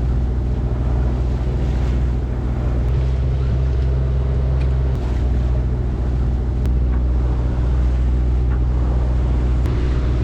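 A small sailboat's auxiliary engine running steadily under way, a constant low drone, with wind buffeting the microphone.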